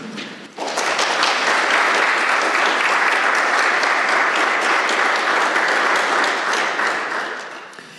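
An audience applauding: clapping starts about half a second in, holds steady, and fades out near the end.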